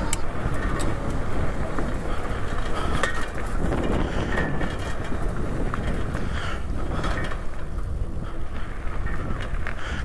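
Steady wind rush on the microphone while riding an electric bike, with the bike's rolling noise underneath.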